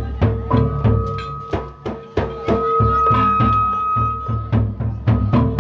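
Sasak gendang beleq ensemble playing: large barrel drums struck with sticks in a fast, busy rhythm, with long held ringing tones over the drumming.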